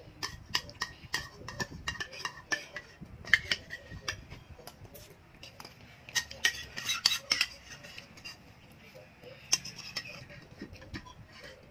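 Metal spoons clinking and scraping against nearly empty ceramic bowls as the last of the porridge is scooped out: a run of sharp, irregular clinks, busiest about six to seven seconds in.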